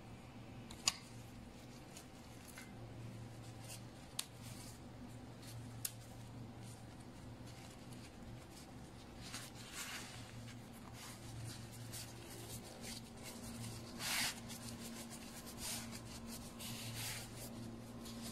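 Thin flatbread and plastic food-prep gloves rustling and crinkling as a shawarma wrap is folded by hand, the loudest crinkle a little past the middle. A few sharp clicks come in the first few seconds, over a steady low hum.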